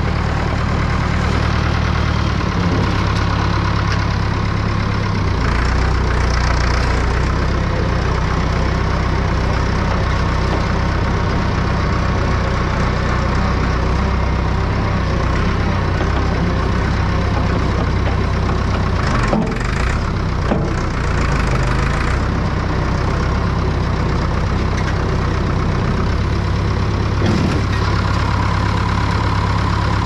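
Massey Ferguson 50 digger's diesel engine running, its pitch stepping up and down a few times as the engine speed changes.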